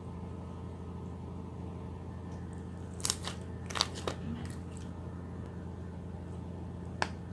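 Steady low electrical or mechanical hum, with a quick cluster of sharp crackling clicks about three to four seconds in and a single click near the end.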